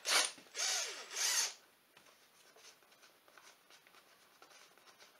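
Cordless drill run in three short bursts against a bolt on an ATV's clutch cover, its motor pitch rising and falling within a burst, followed by faint knocks of handling.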